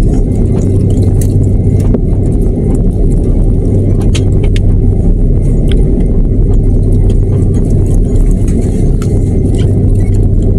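Steady low rumble inside a jet airliner's cabin as it taxis, engines and undercarriage on the ground, with a steady hum and light clicks and rattles from the cabin fittings.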